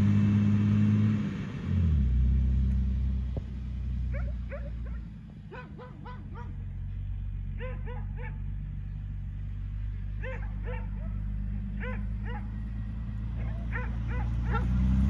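A dog barking repeatedly in quick runs of two to four barks from about four seconds in, over the Jeep Wrangler TJ's engine running low. The engine note drops about two seconds in as the Jeep slows, then rises again near the end.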